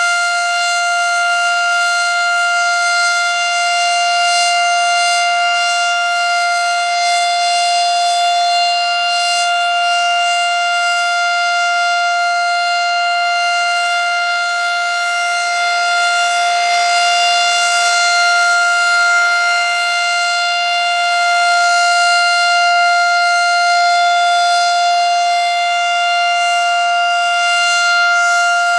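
Federal Signal Model 7 electromechanical siren sounding the steady Alert signal: one loud tone held at constant pitch, slowly swelling and easing in loudness.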